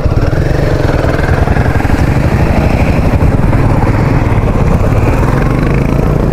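Royal Enfield motorcycle engine idling with an even, rapid thump, while other motorcycles pass close by.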